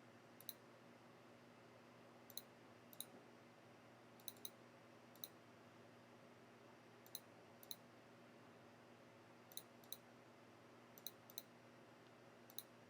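Faint computer mouse clicks, scattered singly and in quick pairs about a dozen times, over a low steady electrical hum.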